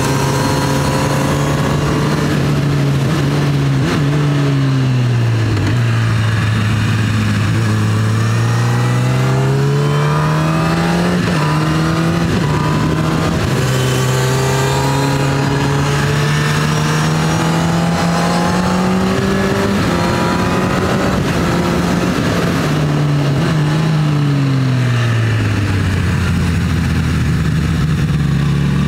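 Honda CB1000R's inline-four engine heard from the rider's seat, its pitch dropping off and climbing again several times as the bike slows for and accelerates out of bends, over wind rush.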